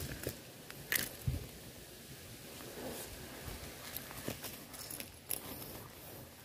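Faint, scattered clicks and knocks, a handful of short separate handling noises about a second apart, over a quiet outdoor background.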